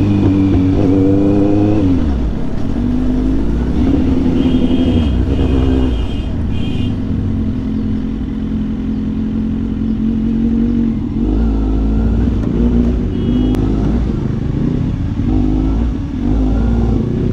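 Kawasaki Z800's 806 cc inline-four engine with a loud aftermarket exhaust, heard from the rider's seat at low speed, the revs climbing over the first two seconds and then rising and falling with the throttle. A few short high-pitched tones sound over the engine a few seconds in.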